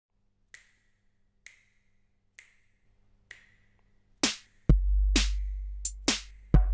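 Intro of a reggae dub track: four light clicks about a second apart, then from about four seconds in, sharp drum hits on the beat with a deep bass note entering just after and returning near the end.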